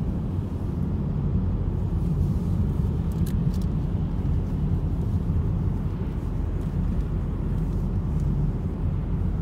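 Steady low road and engine rumble heard inside the cabin of a moving car, with a few faint ticks about three and a half seconds in.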